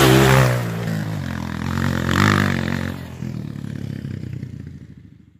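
Off-road enduro motorcycle engine revving, loud at first, rising again about two seconds in, then fading away.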